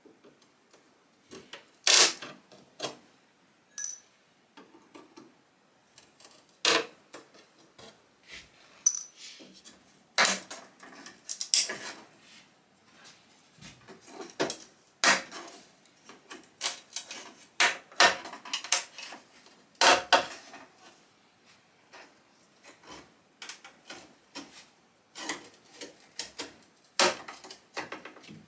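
Irregular metallic clicks and clinks of a screwdriver working small metal fasteners out of a wooden chair's back panel, with fasteners dropped into a ceramic bowl; a couple of the clinks ring briefly and high.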